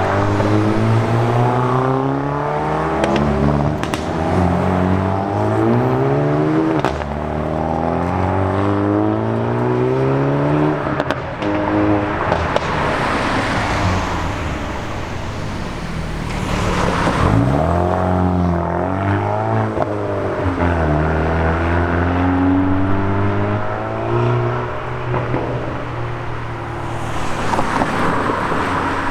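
Hyundai i30N engines, turbocharged 2.0-litre four-cylinders, accelerating hard one after another: the engine note climbs through the revs and drops back again and again at each gear change, with a couple of sharp pops.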